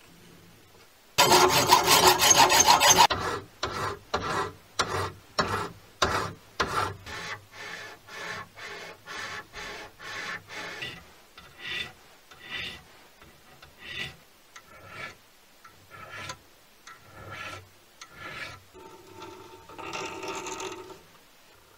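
Hand-finishing of machined metal parts. A burst of loud scraping comes first, then a small brass part is rubbed back and forth on abrasive paper in strokes of about two a second, slowing to a little over one a second. Near the end a countersink cuts into brass for about two seconds.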